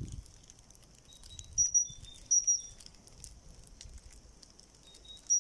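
Small songbirds calling: short, high whistled notes a second or so apart, the loudest about a third of the way in and again near the end, over a faint steady high twitter from more birds. Light scattered crackles sound under the calls.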